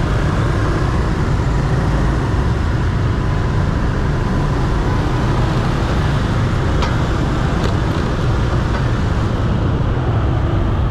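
Dense city traffic of motorbikes and cars, heard from a motor scooter riding in it: a steady rumble of engines and road noise, with a couple of brief clicks about seven seconds in.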